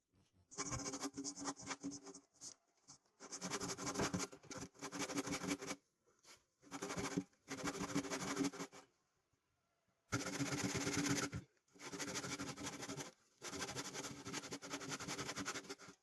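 A small electric power tool run in repeated bursts of one to two seconds, with short pauses between them, its motor tone steady within each burst.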